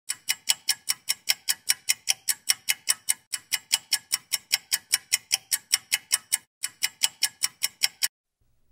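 Rapid, regular clock-like ticking, about four or five crisp ticks a second, a ticking sound effect over an animated intro. It pauses briefly twice and stops about eight seconds in.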